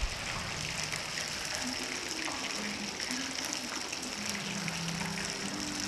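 Faint steady sizzling hiss with small crackles, from chicken pieces deep-frying in hot oil.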